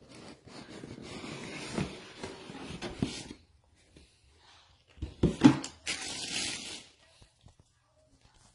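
Handling sounds from unpacking king crab legs: a few seconds of rustling and scraping with a couple of knocks, then a burst of hard knocks about five seconds in, followed by a short rustle.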